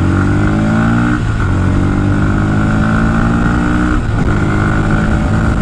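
Bajaj Pulsar NS160's single-cylinder engine accelerating hard through the gears: the engine note climbs, drops at an upshift about a second in, climbs again, drops at a second upshift about four seconds in, and climbs once more.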